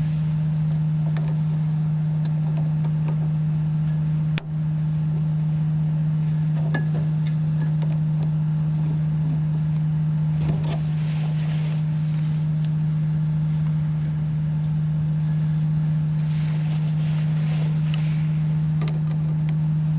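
A loud steady low hum at a single pitch, briefly broken about four seconds in, with a few faint clicks and handling noises under it.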